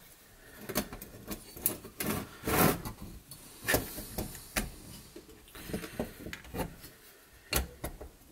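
Irregular small clicks, taps and brief scrapes of metal and plastic parts as the cassette mechanism of a Blaupunkt car cassette radio is handled and seated back into its chassis, with one longer rub about two and a half seconds in.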